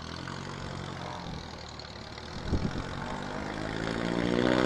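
Motorcycle engine idling steadily, then revving up and rising in pitch as it pulls away, getting louder over the last second or two.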